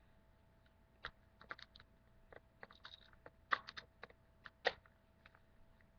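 Irregular plastic clicks and knocks as the battery holder is worked back into an electric pepper grinder's body, with two louder snaps about three and a half and four and a half seconds in.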